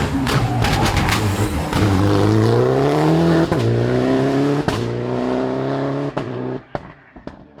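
Rally car accelerating hard, its engine pitch climbing and dropping sharply at two quick upshifts, with several sharp cracks in the first second. The engine note lifts off and the sound drops away about six and a half seconds in.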